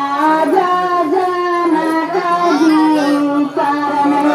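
A woman's voice singing a slow melody with long held, wavering notes, with no drumbeat standing out.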